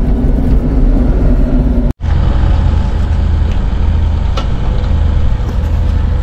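Mini excavator's diesel engine running steadily, broken by a sudden cut about two seconds in, after which a steady low engine note carries on with a few faint clanks.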